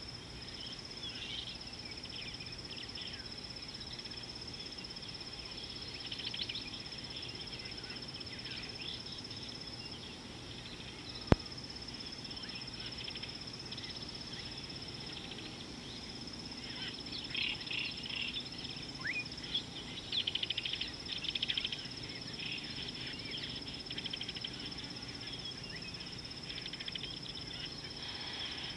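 Bush ambience: a continuous high insect trill, with birds calling and chirping throughout and most busily in the second half. A single sharp click about a third of the way in.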